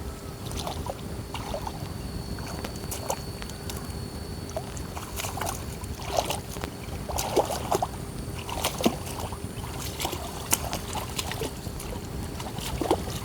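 Shallow water splashing and sloshing, with irregular plops and drips scattered through, more of them in the second half.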